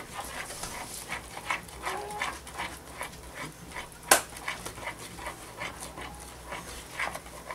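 A spoon stirring thick brownie batter in a plastic mixing bowl: soft, even scraping strokes about three times a second, with one sharp click about four seconds in.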